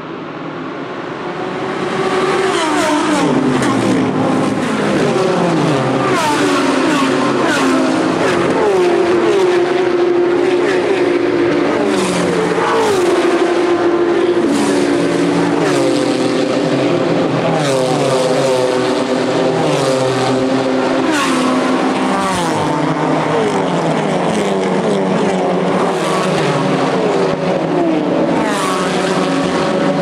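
A field of GT3 and TCR touring race cars accelerating hard past on the main straight at the race start. Many engines at full throttle overlap, each climbing in pitch and dropping back at upshifts, with one loud car after another going by. The noise swells over the first two seconds and then stays dense and steady.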